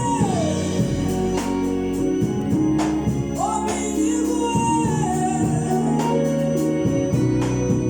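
Gospel choir singing over a sustained organ, with a lead voice sliding between notes and occasional percussion hits.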